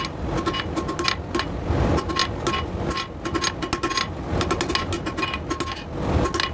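Hammer blows on hot steel flat bar on an anvil, about three to four a second, each leaving a short metallic ring, as the bar is shaped into a curved leaf stem. A steady low rumble runs underneath.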